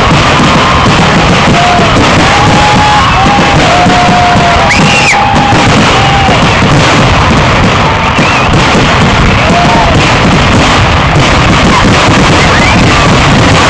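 Fireworks going off in a dense, continuous barrage, the bangs and crackle running together into one loud, unbroken roar. A few short whistles sound over it.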